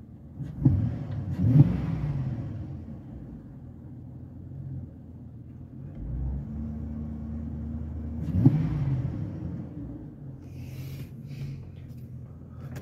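Chevrolet pickup truck engine idling, heard from inside the cab, blipped up quickly three times: twice in the first two seconds and once at about eight and a half seconds, settling back to idle each time. The engine is not yet fully warmed up.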